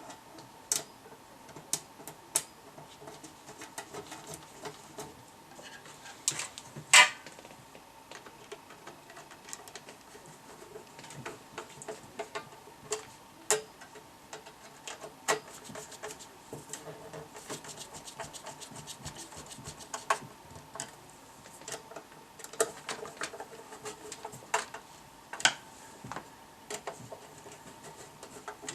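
Tools and small parts being handled: irregular clicks, taps and scrapes, with one louder knock about seven seconds in, over a faint steady tone.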